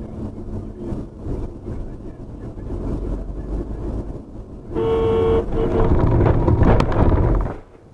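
Vehicle engine and road noise, then a car horn about five seconds in: one long blast and a short second toot. A loud rough noise with a sharp knock follows, then the sound cuts off suddenly.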